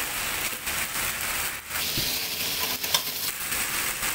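Chicken pieces in a cornstarch-thickened sauce sizzling in a frying pan as a metal spatula stirs them, with a few clicks of the spatula against the pan.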